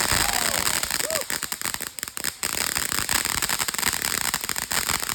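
Firework crackling and hissing continuously, with a dense rattle of small pops.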